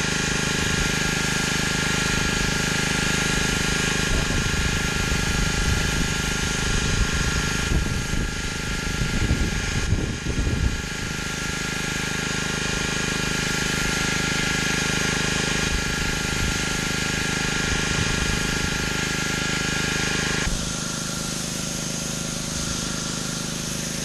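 Gas-engine pressure washer running steadily with a hissing water spray. About twenty seconds in the hiss drops away suddenly while the engine keeps running.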